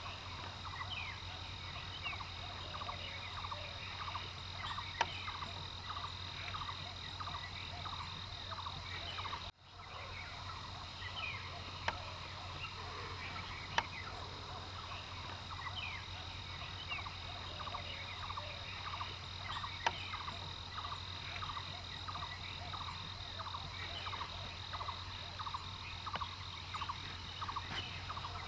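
Waterside wildlife chorus: many short, rapidly repeated chirping calls over a steady high insect buzz and a low hum, with a few sharp clicks. The sound drops out briefly about a third of the way in.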